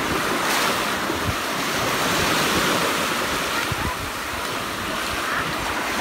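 Small waves breaking and washing onto a stony beach, a steady hiss of surf, with wind rumbling on the microphone.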